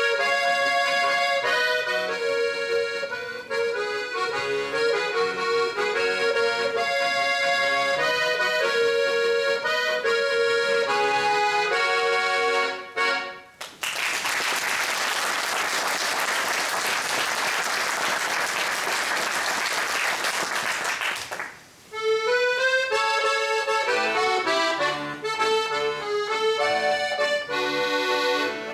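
Guerrini piano accordion played solo, a run of quick melody notes over bass that ends about 13 seconds in. Audience applause follows for about eight seconds, then the accordion starts another piece.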